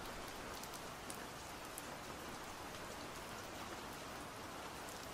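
Steady soft rain: an even hiss of rainfall with scattered small drop ticks.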